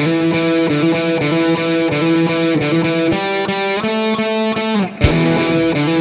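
Background music led by a distorted electric guitar, holding sustained chords; just before five seconds in the notes slide down and briefly drop out, then come back with a sharp hit.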